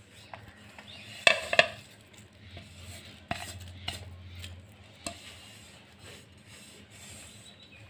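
A metal spoon and a plate clink and scrape against a glass mixing bowl as chopped onions and spices are tipped in and stirred into urad dal batter for medu vada. There are a few sharp clinks, the loudest about a second and a half in.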